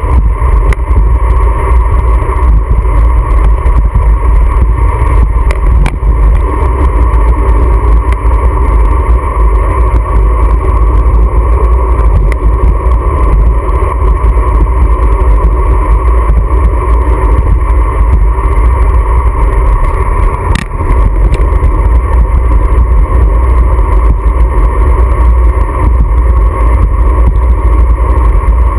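Motorcycle riding at cruising speed, heard from the rider's GoPro: loud, steady wind rush over the camera mixed with the engine's drone. There is one brief dip in level about two-thirds of the way through.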